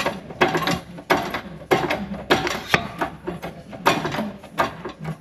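Repeated mechanical clicks and knocks, about one to two a second, from a press tool being worked in steady strokes to push a polyurethane suspension bush into the eye of a front wishbone.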